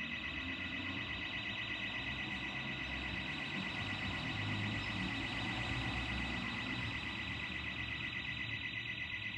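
Burglar alarm sounding continuously: a shrill, rapidly pulsing high tone that does not let up.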